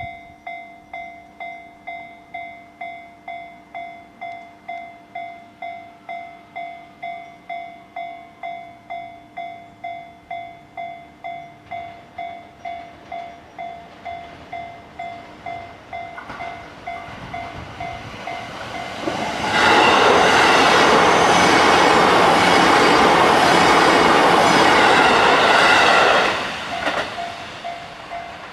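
Japanese level-crossing alarm bell ringing steadily, about two strokes a second. A JR E233 series electric commuter train approaches from about 16 s in and passes over the crossing, loud for about seven seconds and drowning the bell. The bell is heard again near the end as the train moves away.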